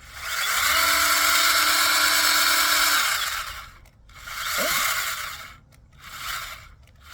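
Ryobi 18V brushless pruning chainsaw run in short trigger pulls: one run of about three seconds with a whine that rises as the motor spins up and falls as it stops, then three shorter bursts.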